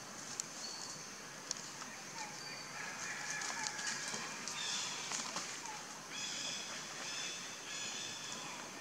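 High-pitched animal calls over a steady outdoor background hiss: a few short chirps, then a longer call drawn out in segments from about six seconds in.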